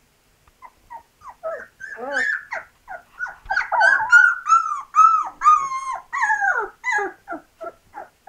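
Two-week-old Labrador puppy crying in a run of short, high, whining cries that rise and fall in pitch. They begin about half a second in, grow longer and louder in the middle, then break into quicker, shorter yelps near the end.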